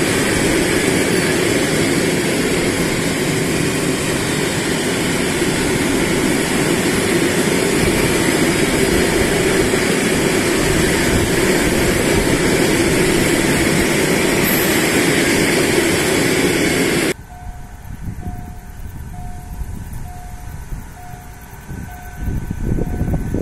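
Freight train of open coal wagons rolling past on the track: a steady rumble and clatter of wheels on rails. About three-quarters of the way through it cuts off suddenly to a quieter scene with a short beep repeating about twice a second, and rising noise near the end.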